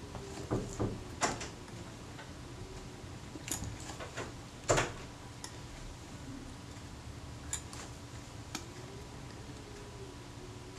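Small metal camera parts clicking and tapping as fingers work the rewind mechanism into a Kodak Retina Reflex IV body: scattered irregular sharp clicks, the loudest a little before halfway.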